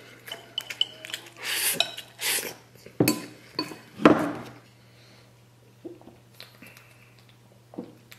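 Chopsticks clicking and scraping against a porcelain rice bowl as the last rice is scooped up. About three and four seconds in, two louder knocks come as the bowl is set down on a wooden table, followed by a few faint clinks.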